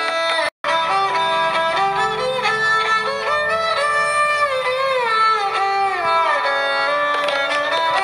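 Instrumental background music led by a violin, its melody sliding up and down between notes; the sound drops out for an instant about half a second in.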